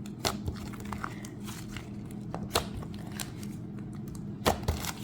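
Blue butter slime being handled and squished, giving scattered small sticky clicks and crackles, with a few sharper pops about a quarter second in, about two and a half seconds in, and near the end.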